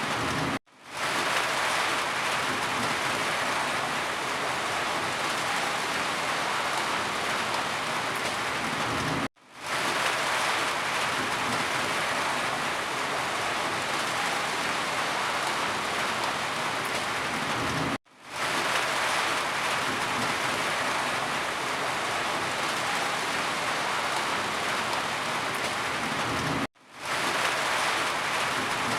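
Steady rain falling, an even hiss of many drops. Four times, about nine seconds apart, it cuts out for an instant and fades back in.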